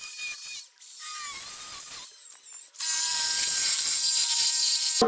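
Power tool cutting through a steel exhaust pipe to take off a rear silencer: a high hiss with a wavering whine, turning suddenly louder and steady from about three seconds in.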